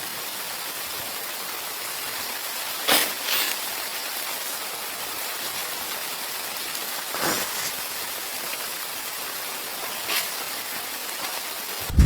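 Steady hiss of falling precipitation hitting a surface, with a few short louder rushes about three, seven and ten seconds in.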